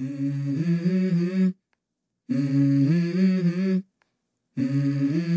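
Intro music: a voice humming a short melody, three similar phrases of about a second and a half each with brief silences between them.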